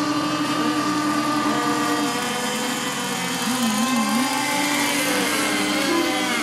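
Several radio-controlled race boats' small two-stroke engines running together on the water. Their pitches hold steady or waver up and down as the boats circle during mill time before the start.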